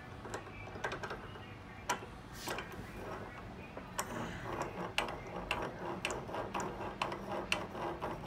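Small table vise being worked by hand with its sliding metal handle bar: irregular light metallic clicks and clinks as the bar and screw turn, sparse at first and coming several a second in the second half.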